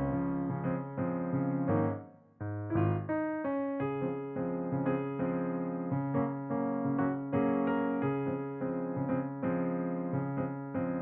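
Background piano music: a gentle keyboard melody over sustained chords, with a short break about two seconds in.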